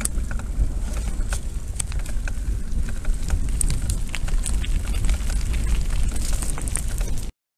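Wind buffeting the microphone of a mountain bike's camera as it rides a gravel farm track, a steady low rumble. Over it comes constant crackling and clicking from the tyres on loose gravel and the bike rattling over the bumps. It cuts off suddenly near the end.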